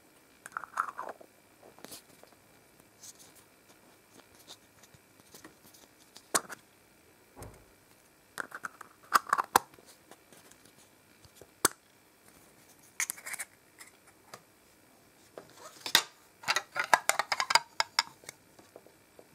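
Hard plastic toy kitchen pieces being handled: scattered clicks, taps and rustles as the plastic parts knock against each other and against the fingers, with a busy run of clatter about sixteen seconds in.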